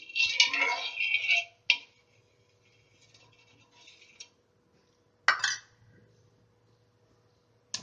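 Metal spoon scraping across a griddle as it spreads ghee, loudest in the first second and a half, then softer. A few sharp clinks of the spoon against the pan come about two seconds in, after five seconds and at the very end.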